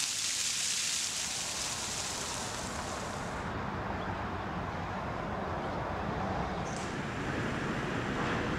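Steady outdoor street ambience: an even low rumble like distant traffic, with a bright hiss that stops about three and a half seconds in.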